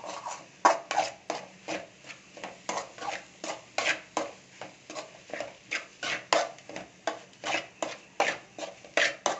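Metal spoon scraping and stirring scrambled-egg masala around a metal pan in quick repeated strokes, about three a second, as the egg is fried until it turns crumbly.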